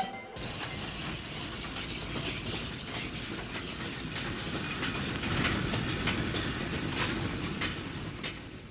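A train rolling along the rails: a steady rumble of wheels with irregular clanks and rattles from the wagons, fading a little near the end.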